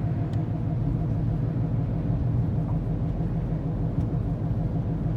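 Steady low drone inside the cabin of a 2014 Ford Escape driving at highway speed, mixed with road noise: the noise of a worn front driver-side wheel bearing, as a mechanic diagnosed it.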